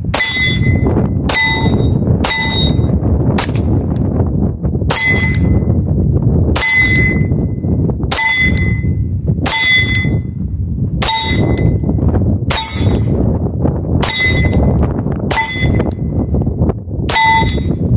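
SIG P226 Legion pistol firing about a dozen slow, evenly paced shots, roughly one every second and a half, at a steel plate target. Each shot is followed by the plate ringing out with a clang. Wind rushes on the microphone underneath.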